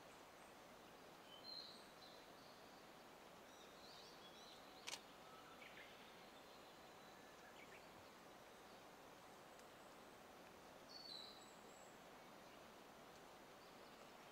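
Near silence: faint outdoor ambience with a few short, faint bird chirps and one sharp click about five seconds in.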